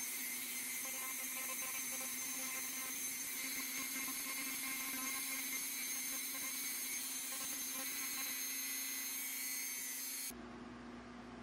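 Handheld rotary tool running with a small bit against a clamped brass piece: a steady motor whine over a hiss. It cuts off suddenly near the end.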